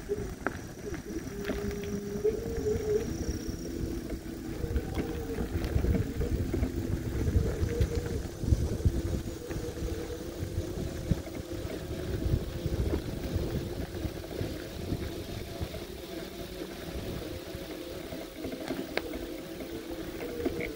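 Electric bike motor whining steadily under a rough low rumble from the ride over a dirt track.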